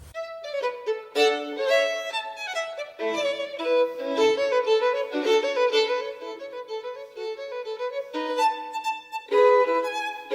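Solo violin playing a quick run of notes, often two at once: background music of a Baroque unaccompanied violin fantasia.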